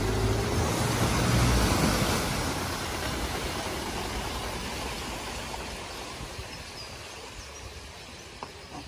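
A BMW coupe driving through a flooded ford, water surging and splashing around its body with a low rumble that is loudest in the first two seconds. The rushing water fades steadily as the car leaves the water and drives off.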